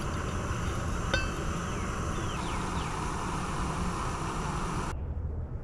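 Canister camp stove burner hissing steadily, with a single metallic clink about a second in and hot water being poured into an insulated tumbler toward the end. The hiss cuts off sharply near the end.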